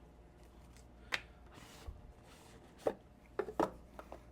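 Packaging of LED headlight bulbs being handled: a few sharp clicks and taps with a soft rustle in between, a small cluster of clicks near the end.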